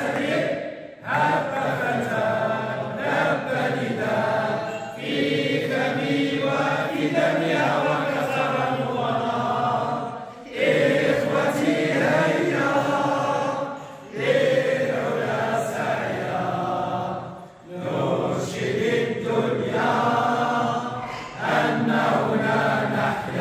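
A group of men and women singing or chanting together in unison, in phrases of a few seconds with short breaks between them.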